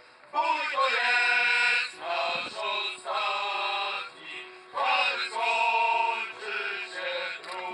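Singing in several phrases of long held notes with short breaks between them.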